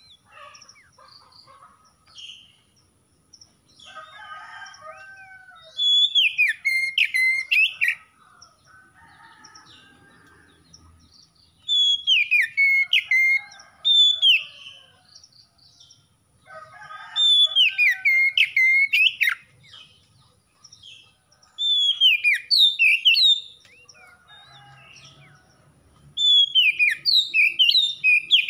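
Oriental magpie-robin singing in five loud phrases of about two seconds each, every four to six seconds. Each phrase is a quick run of whistled notes that fall in pitch, and softer chirps come between the phrases.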